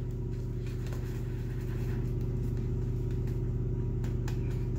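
A steady low machine hum, with a few faint soft swishes from a shaving brush working lather over the face.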